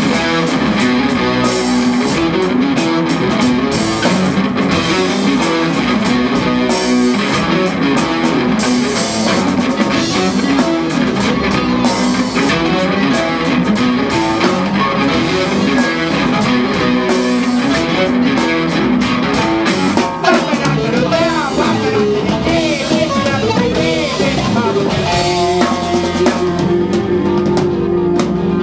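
Live rock band playing in F sharp minor: electric guitars, bass guitar and drum kit on a continuous funky riff.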